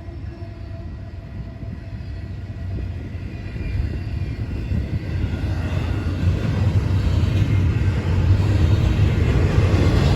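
Diesel locomotive of a train approaching, its low rumble growing steadily louder throughout.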